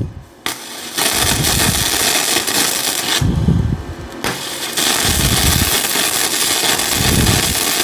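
Yeswelder DP200 flux-core wire-feed welder arc crackling and sputtering as a bead is run. It stops about three seconds in and strikes again about a second later.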